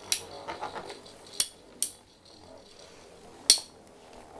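Two Metal Fight Beyblade tops, Cyclone Herculeo and Thermal Lacerta, clashing while they spin in a plastic stadium. They give a string of sharp metallic clinks, the loudest right at the start, about a second and a half in, and about three and a half seconds in.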